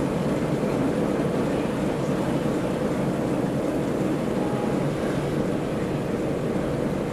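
Diesel shunting locomotive's engine running with a steady rumble as it moves slowly over the depot tracks, hauling a steam locomotive.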